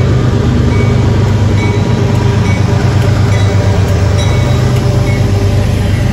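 Train rolling past with a loud, steady low rumble and a few faint, brief high squeals.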